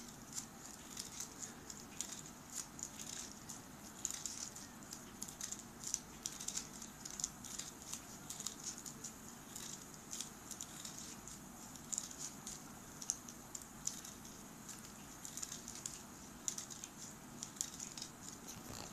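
Scissors snipping through folded paper in many short, crisp cuts, a few a second and unevenly spaced, cutting a fine fringe into the strip.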